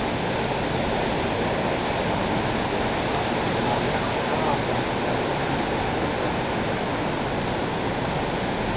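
Steady rush of flowing water from a shallow stream, the Shirakawa canal that runs beside the lane.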